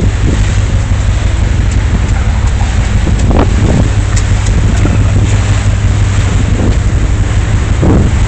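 Wind buffeting a phone's microphone on a ship's open deck, surging in gusts over a steady low drone.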